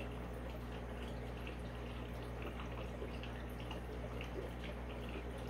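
Aquarium filter running: water trickling and dripping into the tank in many small irregular drips, over a steady low hum.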